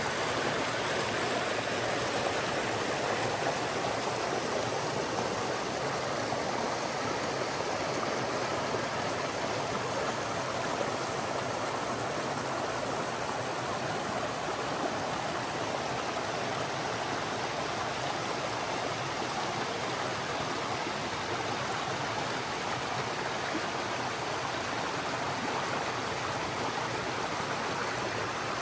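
Shallow rocky creek running over small cascades and riffles: a steady rush of flowing water.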